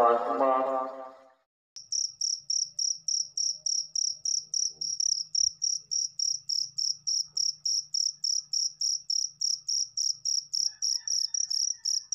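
A cricket chirping in an even, high-pitched pulse of about four chirps a second, starting just under two seconds in. Before it, a held, sung voice fades out.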